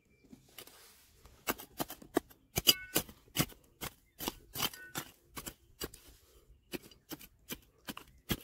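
Hand tool striking and scraping hard stone while digging: an irregular run of sharp clicks and knocks, two to three a second, starting about a second and a half in, a few with a brief metallic ring.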